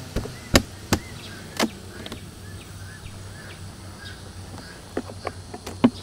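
Metal hive tool prying the top honey super off a wooden beehive: a series of sharp cracks and knocks as the propolis-sealed box is broken loose and lifted. Several come in the first two seconds and a few more near the end.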